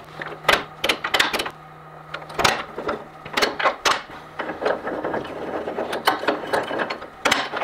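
Irregular sharp metal clicks and clanks from a Wood-Mizer LT15 log clamp's aluminum stops being handled, each stop pushed on and pulled off over its spring-loaded ball-bearing detent. A low steady hum runs underneath.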